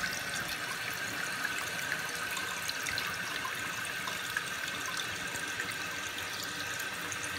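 Toilet tank refilling: water hissing steadily through a newly installed universal fill valve, with a faint steady whine in the flow and water running into the tank. The flow is even, with none of the pulsing the old valve made.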